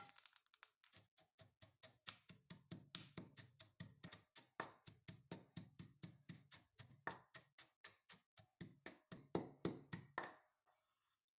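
Faint, steady series of short knocks, about four a second, which stops about ten seconds in.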